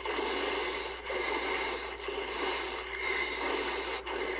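Monster-film soundtrack in low, narrow-band fidelity: a steady rushing, churning noise with no clear tone or beat, over a constant low mains hum.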